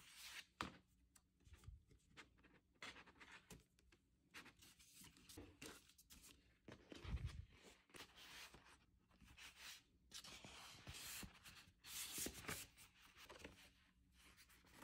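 Faint paper and card rustling, sliding and flapping as a vinyl record is slipped into its paper inner sleeve and a printed booklet and album jacket are handled, with small clicks and a soft low thump about seven seconds in.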